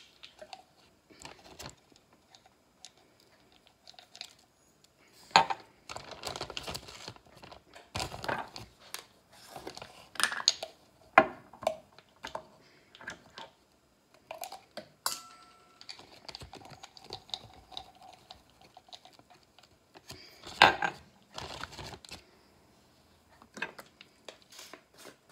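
Irregular clicks, taps and rustles of seasoning being measured: a measuring spoon clinking and scraping against a glass spice jar, and a zip-top plastic bag crinkling, with a few louder knocks.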